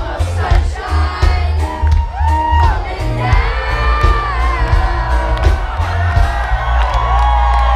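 Live band playing loud pop-reggae music with a sung lead vocal over heavy bass and drums, with whoops and shouts from the crowd.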